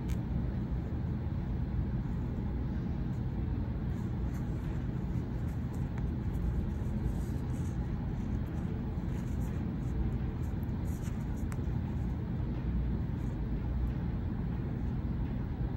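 Steady low background rumble, with faint irregular scratches and light clicks of a needle and thread being drawn through fabric and the holes of a button.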